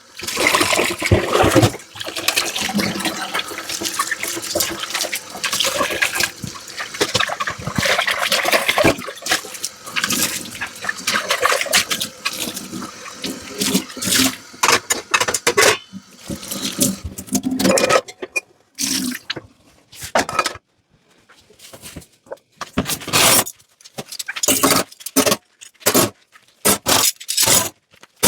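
Tap water running and splashing over dishes in a kitchen sink as they are washed. About two thirds of the way through the water stops, and short, separate scrubbing strokes on a dish follow.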